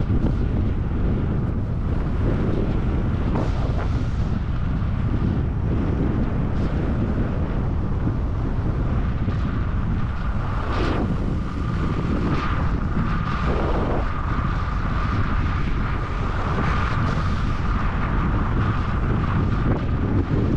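Wind rushing over the microphone of a camera worn while skiing fast downhill, a steady low rumble, with skis hissing and scraping across the snow through several turns.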